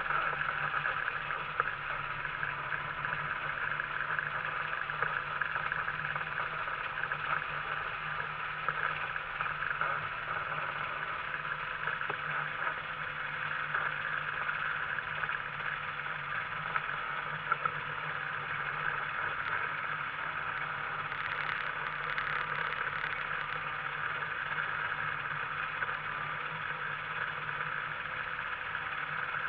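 Microlight trike's two-stroke Rotax engine idling steadily with the trike standing still.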